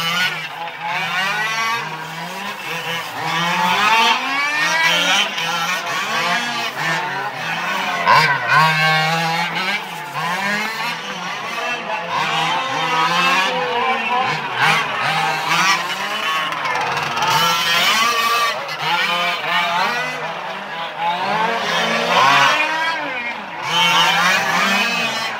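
Several Losi 1:5 scale RC cars racing, their small two-stroke petrol engines revving up and down over and over, the pitch rising and falling with each burst of throttle over a steady low drone.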